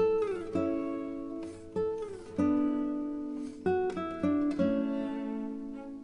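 Background music: acoustic guitar, plucked notes and chords ringing out with a few sliding notes.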